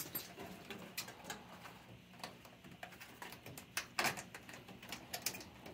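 Scattered light clicks and ticks of hands sorting a furnace's wiring harness and its plastic connectors, with a few sharper clicks about four seconds in.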